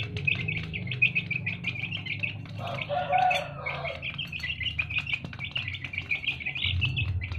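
Small birds chirping: a steady run of quick, high chirps, several a second, with a lower, fuller call from about two and a half to four seconds in.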